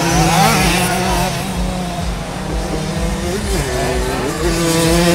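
Single-cylinder two-stroke engines of Simson 60cc racing mopeds running on a motocross track, their pitch rising and falling with the throttle.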